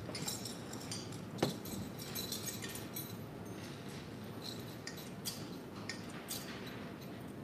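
Quiet church room tone with scattered small clinks and light knocks, one sharper knock about a second and a half in.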